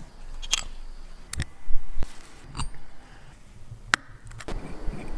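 Small sharp metal clicks and taps with a brief scrape: watch-repair tools and parts being handled on a Mido Baroncelli watch as it is worked on.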